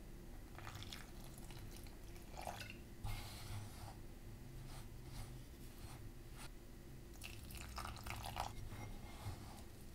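Wooden spoon stirring corn flour and milk into a crumbly dough in a bowl: soft, irregular scraping and squishing strokes, while milk is poured in.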